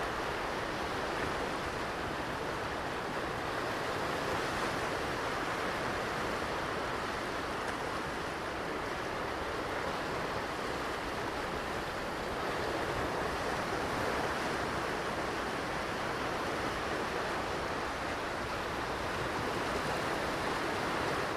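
Ocean surf on a beach: a steady rush of breaking waves that swells gently now and then.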